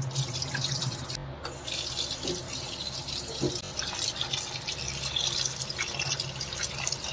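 Tap water running into a plastic colander of sliced potatoes in a steel sink, with a hand swishing and rubbing the slices so the water splashes and drains.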